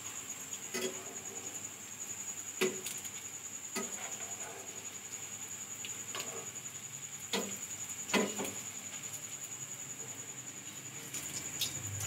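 Potato rice balls shallow-frying in oil in a nonstick pan on a low flame, with a soft sizzle, while a slotted turner knocks and scrapes against the pan as the balls are turned, about seven sharp clicks spread through. A steady high-pitched whine runs underneath.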